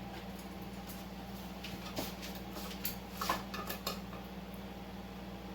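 A few light clicks and clinks of kitchen containers and utensils being handled, clustered about two seconds in and again around three to four seconds in, over a steady low hum.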